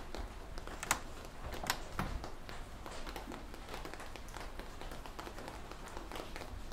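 Hands pressing and working a slab of wet clay: faint soft squishes and taps, with two sharper clicks in the first two seconds.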